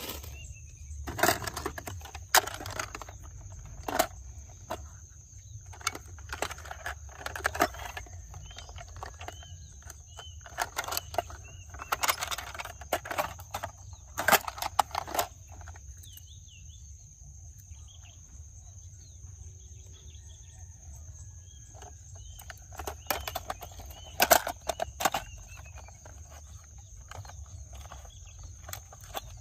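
Irregular clattering knocks and rattles in clusters, with a quieter stretch in the middle, over faint bird chirps and a steady high-pitched whine.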